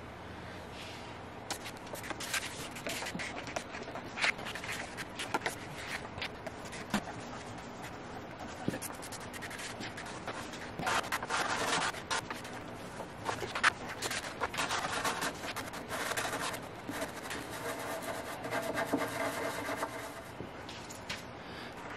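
Irregular rubbing and scraping with scattered short clicks and light knocks, busier in the second half.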